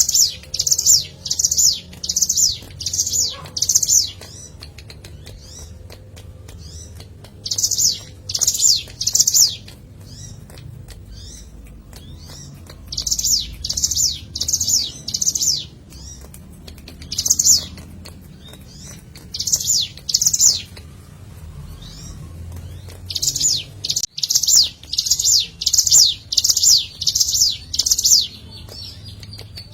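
Ciblek gunung, a prinia, singing loud phrases of three to six sharp high repeated notes, about two a second, with pauses and faint chirps between. This is the bird's song as used in a lure recording to stir caged birds to sing.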